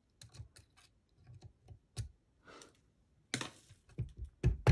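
Light scattered metal clicks and a brief scrape as pin fragments are worked out of the keyway of a drilled euro cylinder lock with a pin remover. Near the end, loud sharp hammer taps on the cylinder begin, knocking the pins down.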